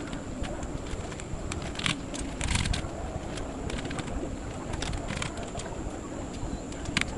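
Plastic keycaps being pressed onto a mechanical keyboard's switches: scattered, irregular clicks and light knocks over a steady low background hum.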